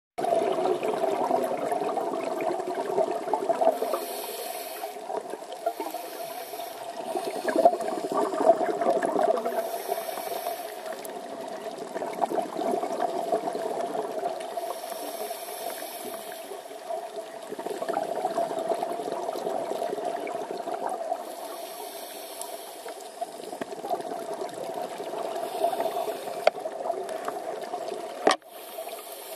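Scuba diver's breathing picked up through an underwater camera housing: a regulator hiss on each inhale alternating with bubbling exhalations, repeating every few seconds over a steady hum. A sharp click near the end.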